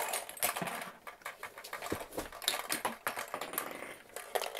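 Small plastic toy cookies clicking and clattering in quick, irregular succession as they are shaken out of a plastic Cookie Monster toy and knock against each other and the toy.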